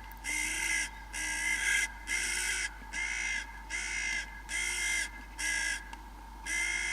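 Hooded crow making quite a racket: a run of about eight harsh caws, roughly one a second, with a short pause before the last. It is agitated calling at the sight of its dead mate.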